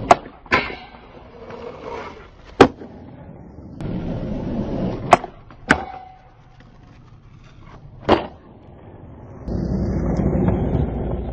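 Skateboard wheels rolling over smooth concrete, broken by about six sharp clacks of the board popping, hitting a round metal rail and landing. Near the end comes a louder, steady close rolling rumble.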